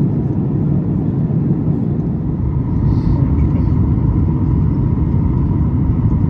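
Airliner cabin noise: the steady, loud low rumble of engines and airflow, with a faint steady tone running under it.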